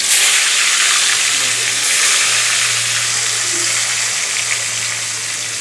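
Fish pieces, marinated in salt and turmeric, sizzling steadily as they fry in hot oil in a kadhai. A low steady hum sits underneath from about a second in.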